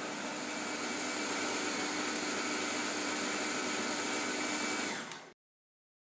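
Blender jug on a kitchen machine motor base running steadily, blending a liquid cake batter of eggs, sugar, dates and oil. The sound cuts off abruptly a little over five seconds in.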